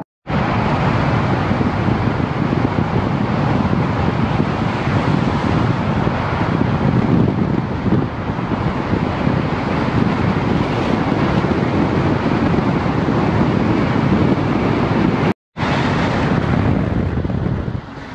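Loud, steady rush of wind and road noise from a car driving through a road tunnel, with the microphone held out of the side window. It cuts out for a moment about fifteen seconds in, and drops sharply near the end as the car leaves the tunnel.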